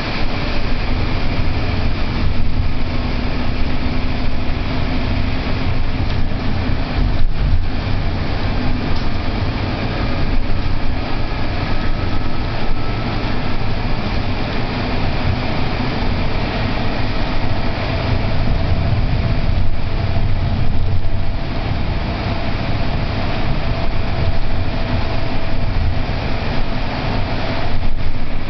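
Scania single-deck bus on the move, heard from inside the passenger saloon: a steady engine and road rumble, with a faint whine that rises slowly in pitch through the second half.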